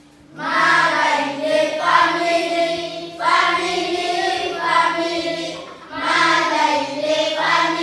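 A class of schoolchildren singing together, starting about half a second in, in phrases with short breaths between them about every three seconds.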